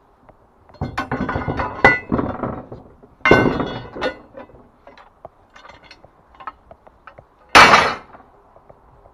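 Steel HAKI scaffold parts clanking and being struck: a clattering run of metal knocks about a second in, a sharp ringing strike a little after three seconds, scattered small clinks, then another sharp strike later on.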